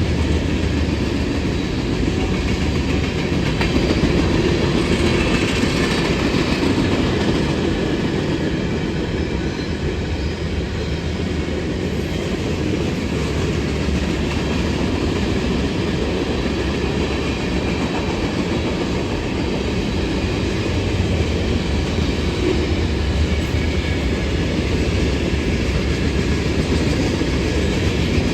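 A train rolling past, its railcars' wheels running on the rails in a steady, continuous rumble.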